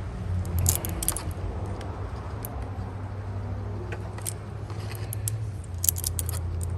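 Light metallic clicks and clinks of pliers and a wire splice connector being handled as a resistor lead is pressed and clamped into it, over a steady low hum.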